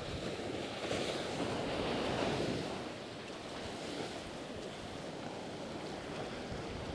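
Surf washing onto a sandy beach, one wash swelling and easing off in the first few seconds, with wind rumbling on the microphone.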